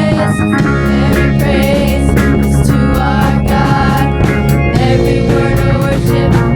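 Band music with drums, guitar and a steady beat, a voice faintly in the mix.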